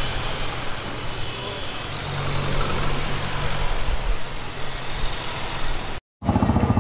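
City street traffic: vehicle engines running with a steady low hum over a wash of road noise. It cuts off abruptly near the end.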